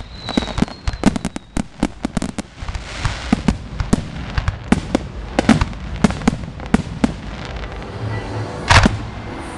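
Fireworks finale barrage: aerial shells bursting one after another in quick succession, a dense run of sharp bangs in the first two seconds, then more spaced bangs, with the loudest bang near the end.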